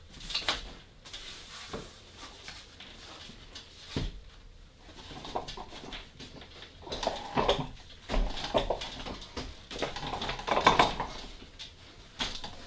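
Folding wagon's steel frame being pulled open by hand: scattered clicks, knocks and rattles from its joints and struts, with one harder knock about four seconds in and busier clattering in the second half.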